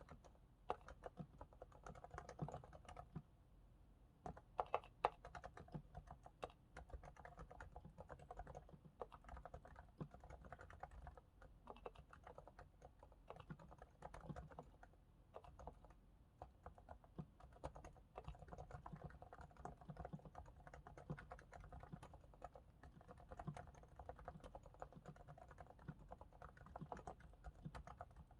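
Typing on a Realforce R2S keyboard with 45 g silent Topre switches, sliders lubricated with Krytox 105: a steady, irregular run of faint, soft keystrokes. There is a short lull about three seconds in, followed by a few louder strokes.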